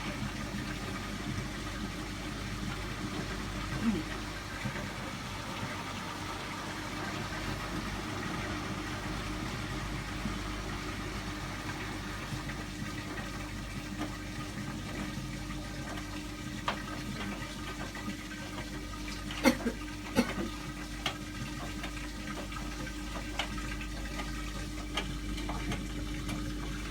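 Hotpoint washing machine draining: a steady pump hum with water rushing and gurgling through. Two sharp knocks come close together about two-thirds of the way through.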